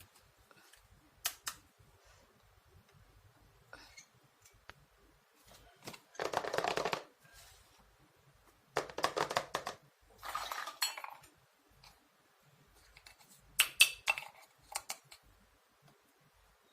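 Pieces of a toy kitchen set being handled, with several rubbing or scraping passes of about a second each and then a quick run of small clinks and clicks near the end.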